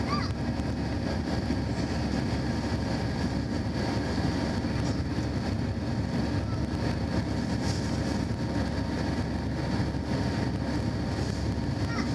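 Steady cabin noise of a jet airliner climbing out after takeoff: engine drone and rushing airflow, with a thin steady whine above it.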